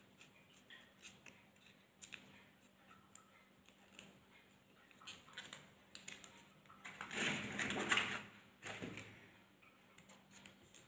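Quiet rustling and crinkling of stiff, dry areca-palm leaf petals as they are handled and tied onto a wire with thread, with scattered light clicks and taps. The loudest rustling comes about seven to eight seconds in.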